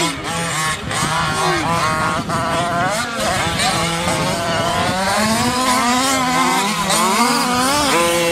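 Several radio-controlled off-road trucks racing on a dirt track, their motors whining at a high pitch that keeps rising and falling as they accelerate and back off, more than one at a time.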